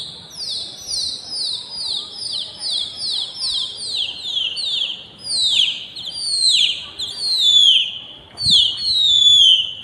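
A pigeon flier's shrill whistling to his flock overhead: a run of quick falling whistle notes, about two a second, then from about halfway through, longer and slower falling notes.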